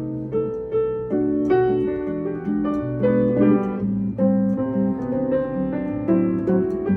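Keyboard music: a melody over chords and a moving bass line, the notes held at an even level rather than fading away.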